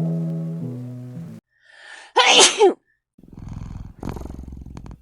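Background music chords fading out, then a single loud sneeze about two seconds in, with a short intake of breath just before it. About three seconds in, a low, rapidly pulsing rumble begins.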